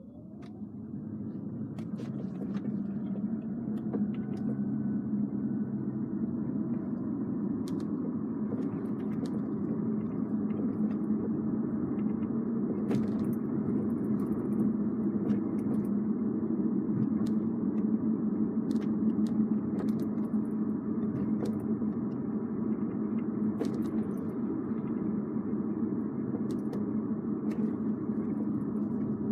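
Cabin noise of a Toyota Crown Athlete Hybrid (210 series) pulling away and driving: a rising whine at first, then steady road rumble. Scattered sharp ticks and creaks come through it, the abnormal noise the owner suspects comes from the moonroof.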